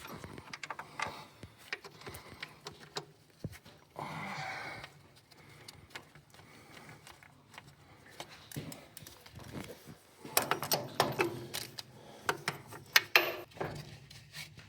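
Hand tools clicking and clinking on the metal parts of a tractor clutch assembly: scattered light clicks at first, then a dense run of sharp metallic clicks and clinks in the last few seconds.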